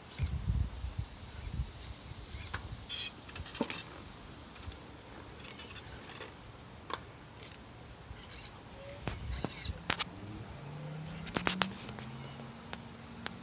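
Scattered clicks and light rattles of a powerchair being handled. About ten and a half seconds in, a low electric motor hum rises briefly in pitch, then runs steadily.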